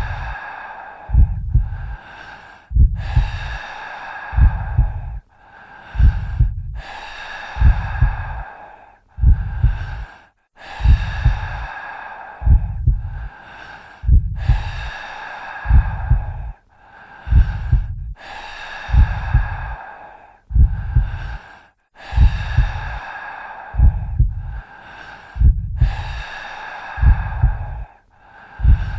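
Heartbeat sound effect: slow, deep lub-dub double thumps about every two seconds, under loud, heavy breathing in and out.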